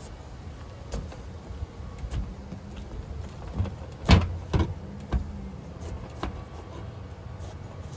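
Kitchen knife being forced through the hard rind of an acorn squash to cut it in half, with scattered knocks and cracks as the squash and blade bump against a plastic cutting board; the loudest knocks come about halfway through.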